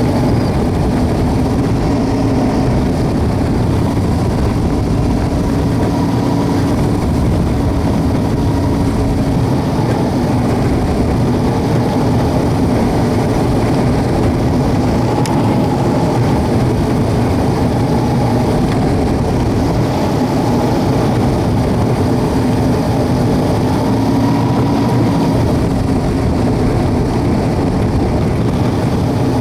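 WAR Corsair homebuilt replica aircraft's piston engine and propeller running steadily, heard from the cockpit, with its pitch drifting slightly up and down.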